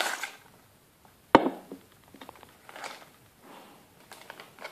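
A single sharp knock about a second in as the plastic-bodied airsoft grenade is set down on a glass tabletop, followed by soft crinkling of a clear plastic bag and a few faint clicks.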